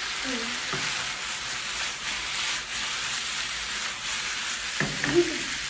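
Chicken pieces with onion, garlic and bell pepper sizzling in a nonstick wok: a steady frying hiss while the pan is sautéed and tossed. A single knock comes near the end.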